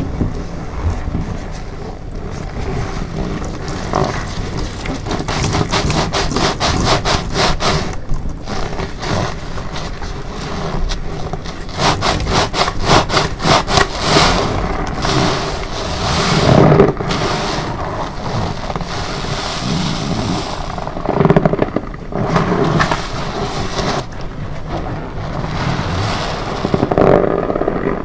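Wet sponge soaked in detergent and cream cleanser being squeezed again and again in gloved hands: squelching foam with stretches of fast crackling bubbles, and the gloves rubbing loudly.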